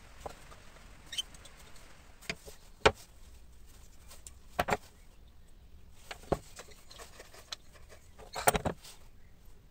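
Scattered knocks and clicks of small wood pieces, a small metal screw clamp and a wooden jig being handled, the sharpest knock about three seconds in and a quick cluster of taps near the end.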